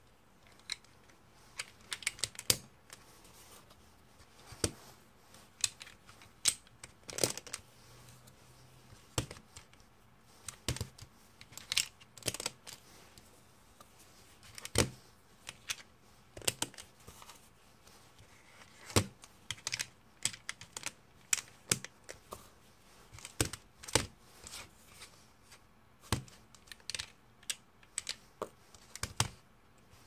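3x3 plastic Rubik's-style cube being turned by hand: sharp, irregular clicks and clacks of the layers snapping round, coming in short clusters with brief pauses between.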